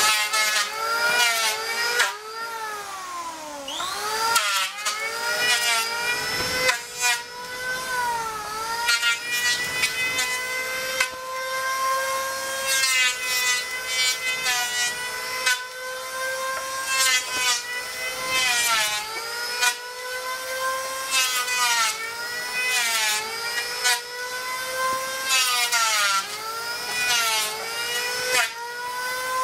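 Handheld electric planer cutting along the face of a laminated wooden keel knee, pass after pass, smoothing it. The motor's whine sags in pitch each time the blades bite into the wood and climbs back between passes.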